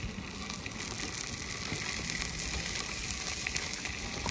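Steady sizzle of pork sausage browning in a pot, with soft wet squishing of hands working mustard into raw pork steaks in a steel bowl.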